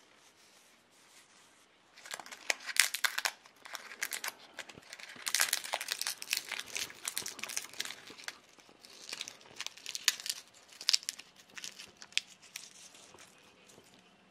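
Dried bay leaves being crumbled and torn between the fingers, a crisp, dry crackling in uneven spells that starts about two seconds in.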